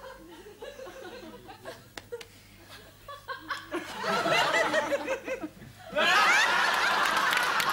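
Audience laughter, rising from about four seconds in and breaking into a much louder burst of laughter about six seconds in.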